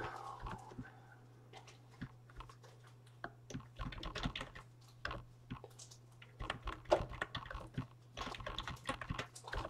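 Typing on a computer keyboard: irregular runs of key clicks, denser in the second half, over a steady low electrical hum.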